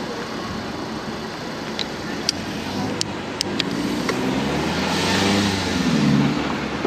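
A motor vehicle passes close by in city traffic: its engine note and tyre noise swell to a peak about five seconds in, the pitch rising and then falling as it goes by.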